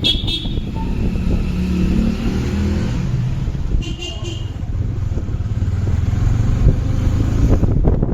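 Yamaha R15 V4 motorcycle being ridden on the road: a steady engine rumble with road and wind noise.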